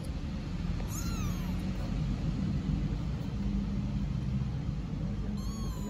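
A small kitten meowing twice, with high, arching cries about a second in and again near the end, calling for its mother cat. A steady low rumble runs underneath.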